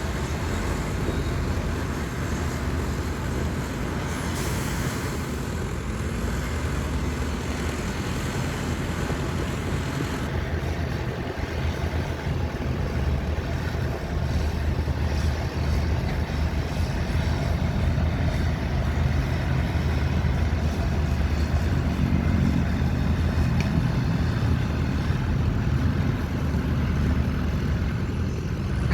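Heavy diesel construction machinery running steadily, growing louder about halfway through.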